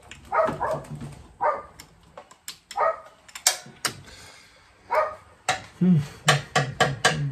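A dog barking, several short barks spread out, with a quicker run of them near the end; sharp clicks fall among the barks.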